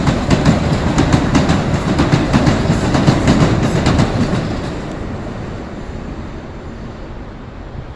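MBTA Blue Line subway train running past, its wheels clattering over the rail joints in quick clicks. The sound fades away from about four seconds in.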